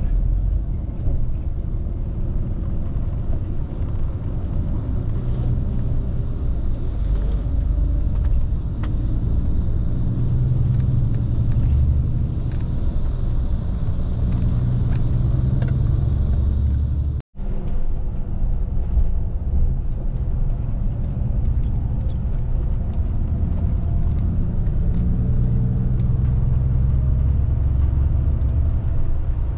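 Steady low rumble of a moving coach heard from inside the passenger cabin: engine and road noise. The sound cuts out for an instant a little past halfway.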